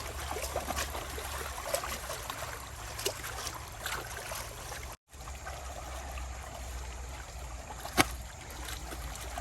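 Running stream water with scattered small knocks and clicks. The sound cuts out for an instant about five seconds in, and there is one sharp click about eight seconds in.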